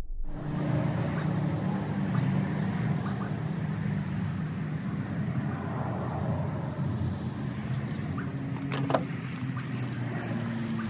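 An engine running steadily, cutting in suddenly at the start, with a single light click about nine seconds in.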